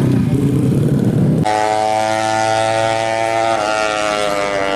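Yamaha Alfa two-stroke motorcycle engine, bored to 116 cc with a 35 mm carburettor, running low and uneven. About one and a half seconds in it switches abruptly to a steady, high-pitched rev, held to the end with a slight wobble.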